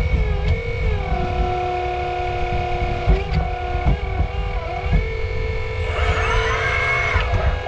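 Hydraulic pump of a 1/8-scale 385CF RC excavator whining steadily. Its pitch dips and recovers several times as the hydraulics take load, over a rumble of working noise.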